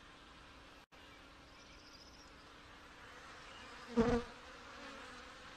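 Honey bees humming steadily over an open, crowded hive. About four seconds in, a single bee buzzes loudly and briefly close to the microphone.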